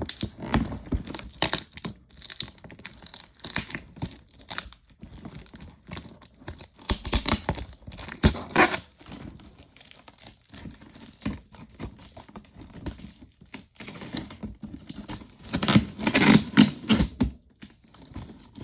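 Cardboard box being torn open by hand: irregular ripping, crinkling and crushing of cardboard and tape. The loudest tearing comes in bursts about halfway through and again near the end.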